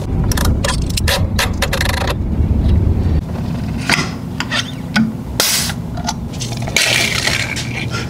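Clicks, clinks and scrapes of a Fox Float X2 rear shock's metal parts being handled and slid apart during disassembly. There is a quick run of sharp clicks in the first two seconds, one loud sharp click partway through, and a short hiss near the end.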